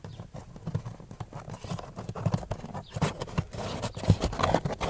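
Hands pressing and tapping along a Skoda Octavia A5's plastic under-dash trim panel: irregular small clicks and knocks, sparse at first and busier in the second half.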